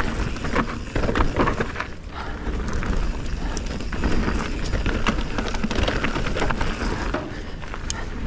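Canyon Spectral 29 mountain bike descending a dirt forest singletrack at speed: tyres rolling over dirt and roots under a steady rumble of wind on the chest-mounted camera, with frequent sharp clicks and rattles from the bike over the bumps.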